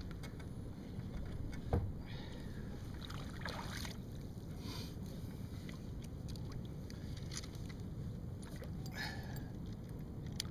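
Rod, reel and tackle being handled in a kayak: scattered rustles and clicks over a steady low rumble, with one knock about two seconds in.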